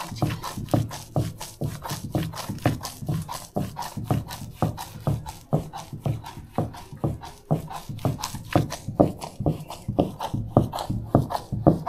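Hand grinding stone pushed back and forth over a lower grinding stone, grinding a thick, oily paste: an even, rhythmic scraping rub, about three strokes a second.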